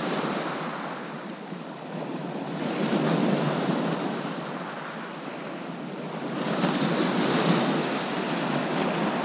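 Sea waves washing onto the beach, with two louder surges a few seconds apart.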